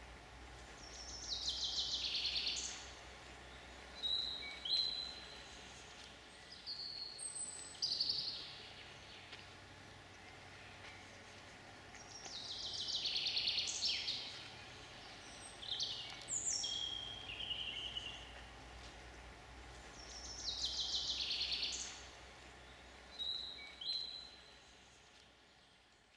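Songbirds singing in woodland: a song of about two seconds, repeated three times several seconds apart, with shorter calls from other birds in between, over faint steady background noise. The sound fades out near the end.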